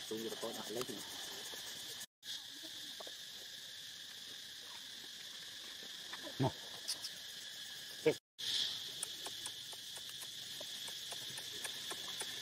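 Steady high-pitched chorus of insects trilling, with a couple of short soft knocks past the middle. The sound drops out completely for a moment twice.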